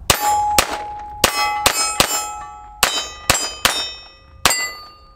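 A Ruger LCP II .22 LR pistol fired about nine times at an uneven pace, roughly two shots a second. Each shot is followed by the ringing of a struck steel target, which lingers between shots.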